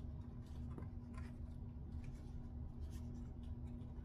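Faint rubbing and a few soft taps of paper being pressed down by hand to make a glued piece stick, over a steady low hum.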